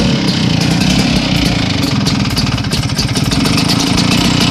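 Vespa PX two-stroke engine running steadily with a rough, rattling clatter ('kemerasak'), a noise the mechanic is sure comes from the piston or piston rings.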